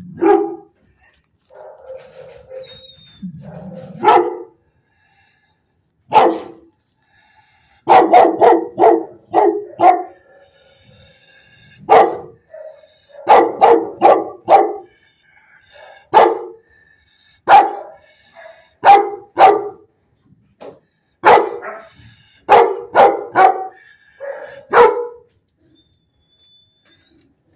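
A dog barking repeatedly, in clusters of two to five quick barks with short pauses between, stopping a couple of seconds before the end.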